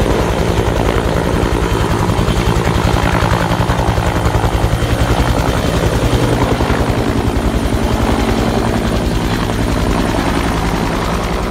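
CAL FIRE Bell UH-1 Huey firefighting helicopter hovering low over water, refilling its tank through a hanging snorkel hose. Its two-blade main rotor beats in a rapid, even pulse over the steady drone of the turbine engine. Near the end the sound eases slightly as the helicopter climbs away.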